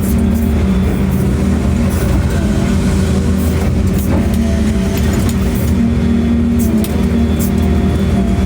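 A large engine running steadily at a constant speed, with scattered light clicks and knocks over it.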